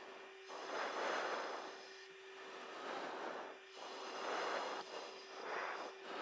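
Aircraft noise heard from on board a camera aircraft: a steady engine tone under rushing air that swells and fades about every second or so.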